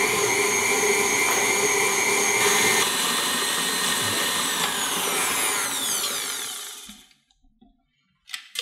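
KitchenAid Artisan stand mixer running with a steady motor whine while creaming butter and sugar with its flat beater. About five seconds in it is switched off and its pitch falls away until it stops near seven seconds. A sharp click comes near the end.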